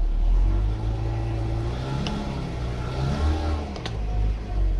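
Jeep engine running at idle, rising and falling in pitch twice as it is given gas to back the tyre up onto a stack of plastic wheel levelers, with a couple of short sharp clicks.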